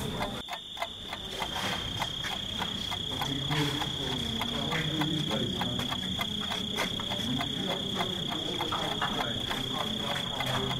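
Footsteps of a group of people walking in single file along a concrete corridor, with many irregular taps and scuffs several times a second. A steady high-pitched whine runs under them.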